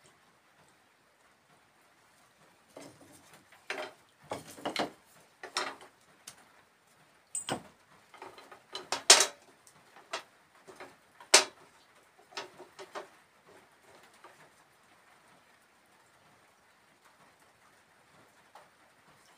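Thin wooden glazing strips clinking and knocking against a window frame and its glass pane as they are handled and laid in place, in an irregular run of sharp knocks with two louder ones in the middle.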